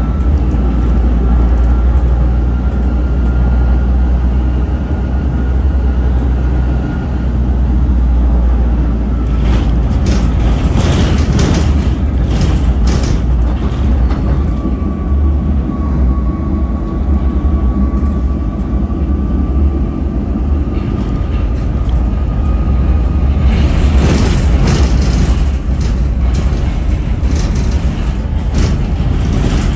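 Tram running at speed heard from inside the car: a steady low rumble with a faint whine that shifts slightly in pitch. Two spells of clattering come about a third of the way in and again past three quarters.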